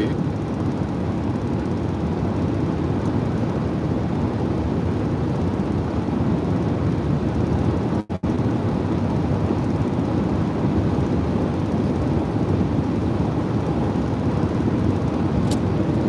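Steady road and engine noise inside a car cabin cruising at highway speed, a low even rumble. The sound cuts out for a split second about eight seconds in.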